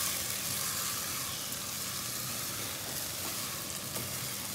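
Potatoes and carrots sizzling in ghee and masala in a cooking pot while a wooden spoon stirs them: a steady frying hiss. The ghee has separated from the masala, the sign that it is well fried.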